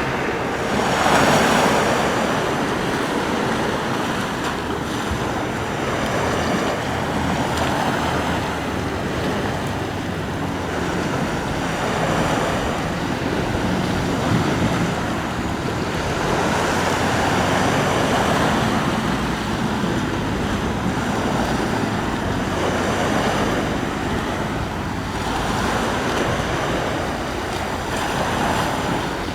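Sea waves breaking and washing onto the shore, the surf swelling and easing every few seconds, with wind buffeting the microphone as a low rumble.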